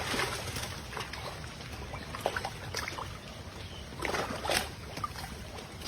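Pond water sloshing and splashing in small irregular bursts as someone fishes in it by hand, with a louder stretch of splashing about four seconds in.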